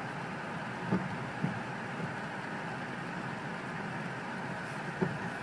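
Steady running noise heard from inside a car, with a few faint knocks at about one, one and a half and five seconds in.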